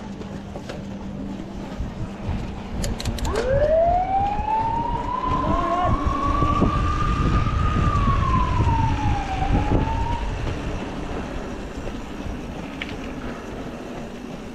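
A siren winds up over about four seconds to a high wail, holds, then winds down, with a brief rise again before it stops. A low, steady rumble runs underneath it.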